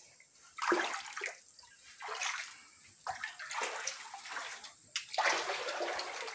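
Water splashing and sloshing in repeated bursts about a second apart, from a wet swimmer climbing wooden steps up out of a cenote pool.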